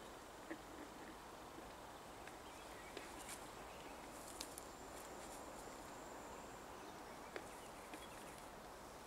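Faint outdoor ambience with thin, high bird chirps. A few soft clicks and rustles come from the wire hoops and netting of a collapsible hoop-net fish trap being handled.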